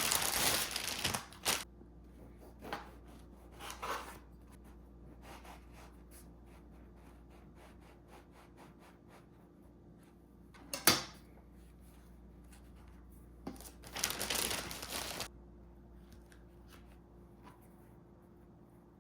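Kitchen handling noises: short bursts of rustling and crinkling like packaging being handled, with soft taps and clicks between, a sharp knock about halfway through and a longer rustle a little later.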